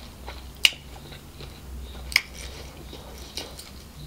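Close-miked sounds of eating fried rice by hand: soft chewing and picking, with two sharp clicks about half a second and two seconds in, over a low steady hum.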